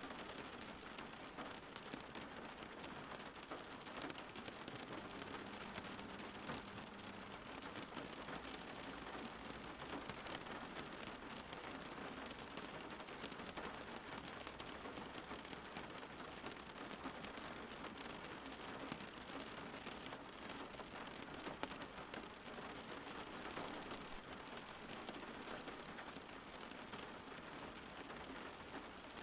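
Steady rain falling, a continuous even hiss of drops with faint individual drop ticks.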